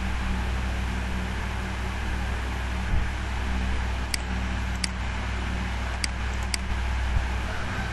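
Computer mouse clicks: four short, sharp clicks in two pairs in the second half, over a steady low background hum.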